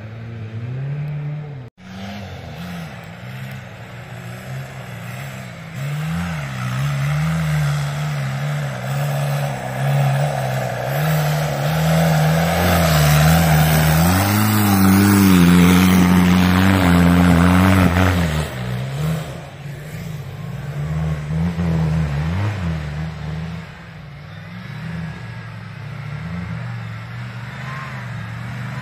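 Off-road vehicle's engine running unevenly under load, its revs rising and falling, then building to its highest and loudest from about ten seconds in before dropping back sharply around eighteen seconds in. The sound cuts out briefly just under two seconds in.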